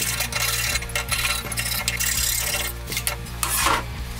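Steel plate and bar stock clinking and scraping as they are handled on a steel workbench, with short sharp metallic clinks scattered through, over background music with a steady bass.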